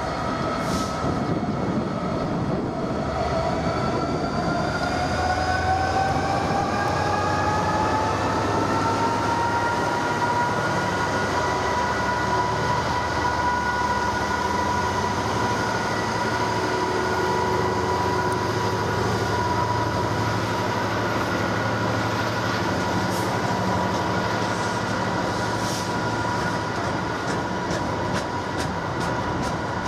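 A train running through, with a whine that rises in pitch over roughly the first ten seconds and then holds steady above a continuous rumble, as the train picks up speed; a few clicks come near the end.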